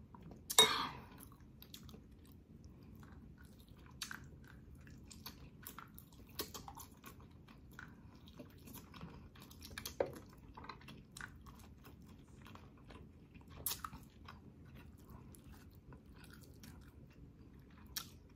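Close-up mouth sounds of a person eating boiled pork: soft chewing with scattered lip smacks and wet clicks, and a louder slurp about half a second in.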